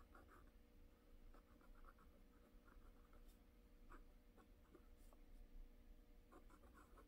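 Faint scratching of a Leonardo Momento Zero fountain pen's soft extra-fine nib writing on notebook paper, in short irregular strokes.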